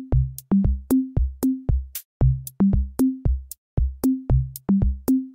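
Electronic background music: a drum-machine beat with punchy kicks and short bass notes, about four hits a second.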